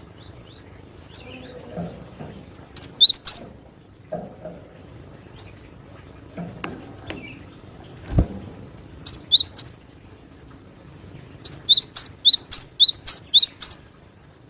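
Cinereous tit (gelatik batu) singing in loud bursts of quick, rising whistled notes: three notes, then three more, then a longer run of about nine near the end, with a few fainter chirps between. A single knock sounds a little past the middle.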